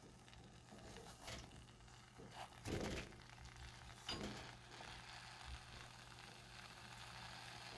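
Roasted sweet potatoes handled and set back down in a stone pot: a few soft knocks and bumps, the loudest about three seconds in, over a faint steady hum.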